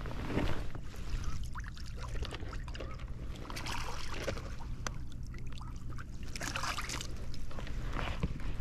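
Shallow seawater splashing and sloshing in irregular bursts as a landing net is swept through it and a hooked fish thrashes at the surface.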